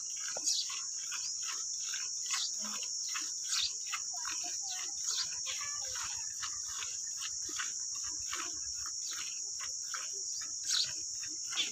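Hand-milking a cow: streams of milk squirting into a steel pail in a steady rhythm of about two squirts a second, with a steady high-pitched insect chorus throughout.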